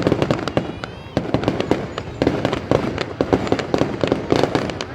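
Fireworks display: many shells and crackers bursting in quick, irregular succession, a dense run of bangs and crackling with no pause.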